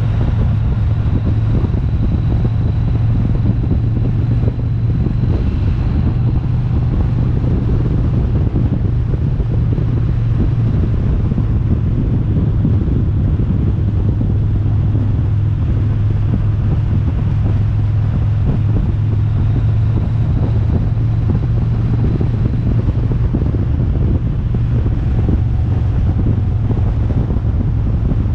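Steady low engine drone with road and wind noise from a vehicle driving along at an even speed.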